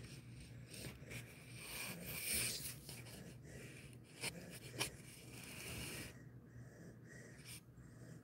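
Jindo-mix dog breathing softly through its nose while lying dozing on the floor, with two faint clicks around the middle.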